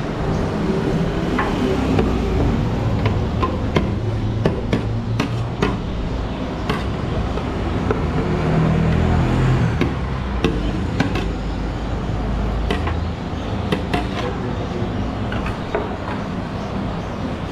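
Busy street noise: a steady low rumble of traffic, with many scattered sharp knocks and clicks over it.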